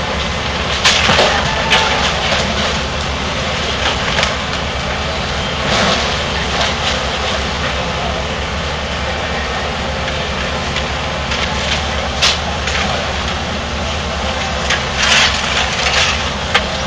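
Hitachi hydraulic excavator's diesel engine running steadily under load while it demolishes a building, with scattered sharp cracks and crashes of breaking wood and debris, the sharpest about a second in and about twelve seconds in.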